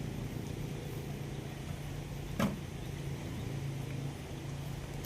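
Sawmill machinery running with a steady low hum, with one sharp knock about two and a half seconds in.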